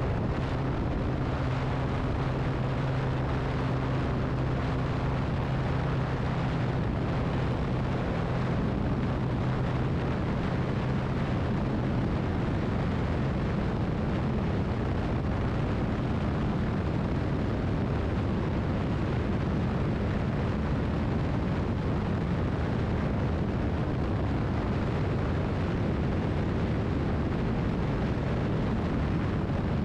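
Honda PCX scooter at full throttle, accelerating hard on a top-speed run. Its steady engine drone is clear for the first several seconds, then is buried under an even rush of wind and road noise as the speed climbs past about 110 km/h.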